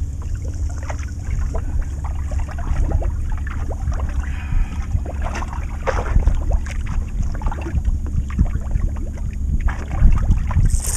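Wind rumbling on the microphone over water lapping against a small boat's hull, with scattered light knocks and clicks.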